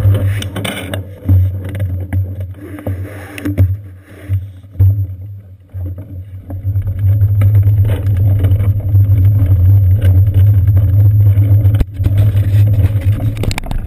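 Low rumble of wind and road vibration from a bicycle in motion, picked up by a seat-post-mounted GoPro Hero 2, with a few knocks. It eases off for a couple of seconds near the middle, then comes back louder.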